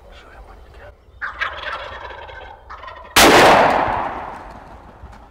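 A wild turkey tom gobbles about a second in. About two seconds later a single very loud .410 shotgun shot goes off and fades out over a second or so as it rings away.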